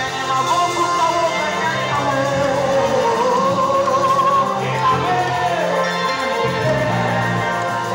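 Live gospel worship song: a singer's voice through a microphone and PA over band accompaniment with a steady bass line, the melody wavering and gliding.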